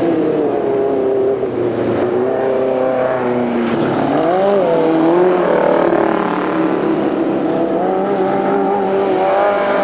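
Engines of vintage speedway midget race cars running on a dirt track, more than one at once, their pitch rising and falling as the cars throttle on and off through the turns, with a clear dip and climb about halfway through.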